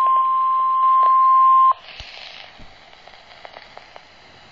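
NOAA Weather Radio warning alarm tone: a single steady, loud tone of about 1050 Hz that cuts off suddenly about two seconds in. Faint radio hiss with a few small clicks follows.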